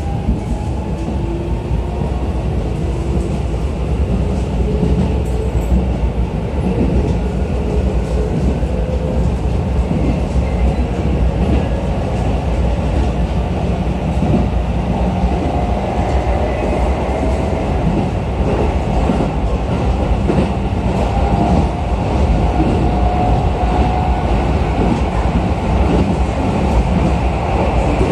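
Keisei new 3000-series electric train running, heard inside the passenger car: a steady low rumble of wheels on rail with scattered rail-joint clicks. A thin traction-motor whine rises slowly in pitch over the first several seconds as the train gathers speed, and comes back faintly around the middle.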